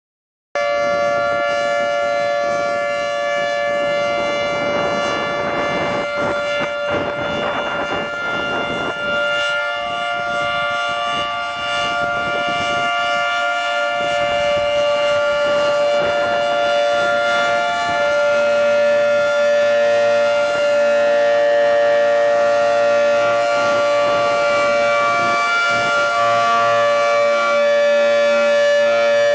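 Federal Signal 2T22 dual-tone outdoor warning siren sounding during its test, holding a steady full-pitch chord of several tones. It grows a little louder about two-thirds of the way through.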